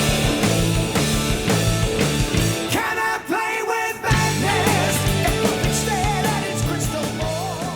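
Rock music with electric guitar and a singing voice, beginning to fade near the end.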